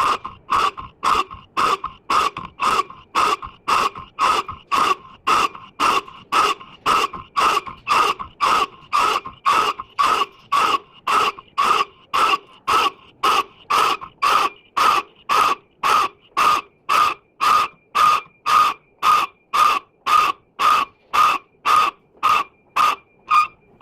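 Lathe machining: a harsh scrape repeating evenly about twice a second, with a faint steady high whine joining about halfway through.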